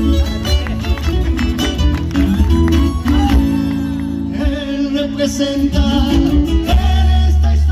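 Live Argentine folk band playing a gato: strummed acoustic guitars, violin, electric bass and drum kit. A man's singing voice joins about halfway through.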